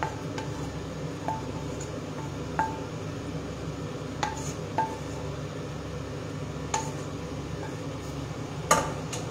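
A wooden spoon scraping and knocking against a frying pan and a ceramic plate as cooked black rice is served out: about seven sharp clinks, each ringing briefly, the loudest near the end. A steady low hum runs underneath.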